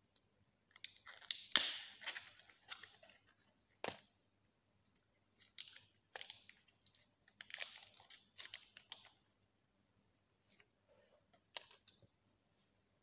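Foil-lined paper wrapper of a Maggi chicken stock cube being torn open and crinkled by hand, in three short spells of crackling with a few sharp clicks.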